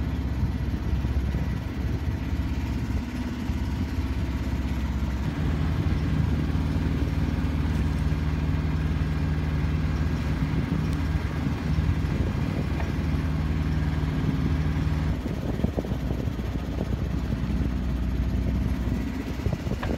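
Alberg 30 sailboat's inboard engine running steadily under way. Its note shifts about five seconds in and again around fifteen seconds in.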